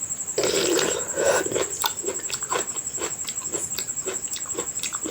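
Close chewing of a mouthful of curry and rice: a louder wet mouth sound about half a second in, then a train of short wet clicks, about two to three a second. A faint steady high whine runs underneath.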